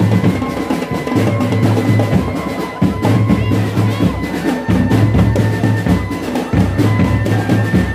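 Drum band music: rapid snare strikes and bass drum over a deep bass line held in notes of about a second, with thin sustained melody tones above.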